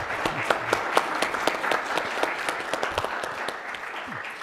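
Audience applauding: many people clapping in a hall, thinning out near the end.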